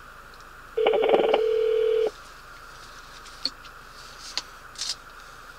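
Telephone ringback tone of an outgoing call on speaker: one steady low ring of about a second and a half, starting about a second in, with a higher buzzy tone over its first part. A few faint clicks follow.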